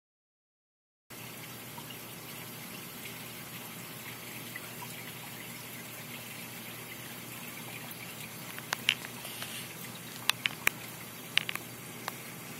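Steady rush and trickle of water circulating through a saltwater reef aquarium. It starts about a second in, and a handful of sharp clicks come in the second half.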